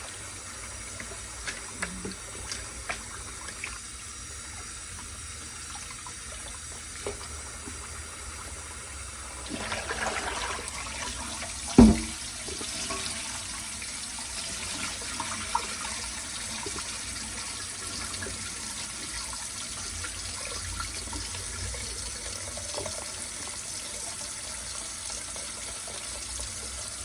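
Kitchen tap running into the sink while rice is rinsed in water, the rinse water swishing. A single sharp knock about twelve seconds in.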